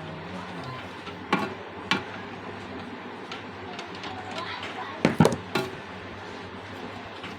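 A few sharp knocks and clicks over a steady background hiss: two single knocks in the first two seconds, then a quick group of three about five seconds in, the loudest of them.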